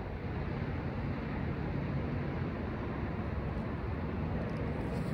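Wind buffeting the microphone: a steady hiss, heaviest in the low end, with no distinct events.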